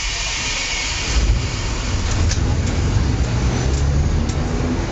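Old DL3000 tram running on street track: a low rumble from its nose-suspended traction motor and wheels, with a few sharp clicks. A high hiss fades away about a second in.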